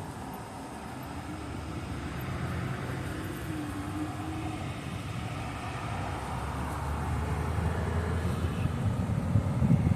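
Motor vehicle traffic rumble, swelling gradually over the first few seconds and then holding steady.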